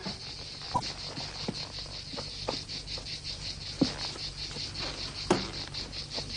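Crickets chirping in a steady, rapid pulse, about six chirps a second. A few light clinks and knocks of crockery sound over it, the clearest about four and five seconds in.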